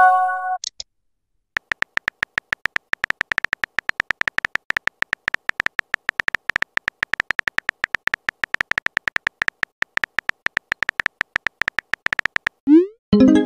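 Texting-app keyboard sound effects: a rapid, uneven run of sharp electronic typing clicks as a message is typed out. A short chime sounds at the very start, and near the end a quick rising swoosh and a chime mark a message being sent.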